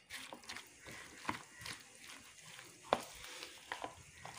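A plastic spoon stirring a thick, wet batter of grated potato in a bowl: soft squelching with irregular knocks of the spoon against the bowl, the sharpest about three seconds in.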